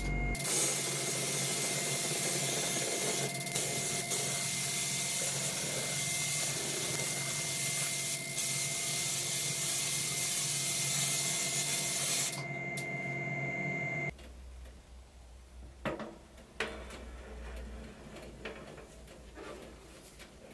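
Electrostatic powder coating gun hissing as it blows a cloud of powder onto small hanging sheet-metal parts, over a steady hum with a high whine from the coating booth. The spray stops about twelve seconds in and the hum a couple of seconds later, leaving a low rumble with a few light knocks.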